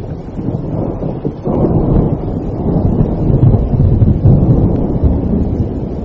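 Thunder rumbling over steady rain, the low rumble swelling about a second and a half in and rolling on loudly.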